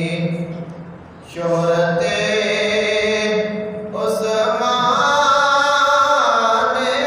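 A man's solo voice chanting an Urdu manqabat (devotional praise poem) in long, drawn-out melodic notes. He pauses for breath about a second in and briefly again near four seconds, then sings a louder phrase.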